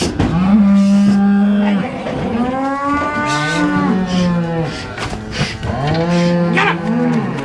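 Several beef suckler cows mooing in long, loud calls, three in turn, two overlapping around the middle: cows calling for their calves, which have been separated from them for loading.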